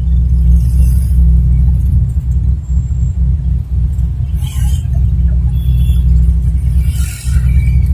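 Steady low rumble of an angkot minibus's engine and road noise, heard from inside the cabin while it drives. Two brief hisses rise over it, about halfway through and near the end.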